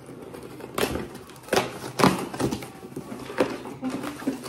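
Small cardboard box being pulled open by hand: a run of irregular scrapes and crackles as the flaps are worked loose and folded back.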